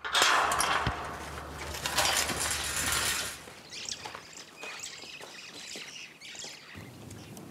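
Tall metal stockade gate being handled and pushed open, rattling and scraping at the start and then giving lighter scattered clicks.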